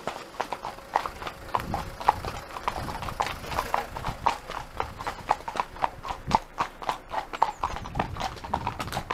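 Horses' hooves clip-clopping: a quick, uneven run of hoofbeats from horses in a riding group, heard close up from the saddle.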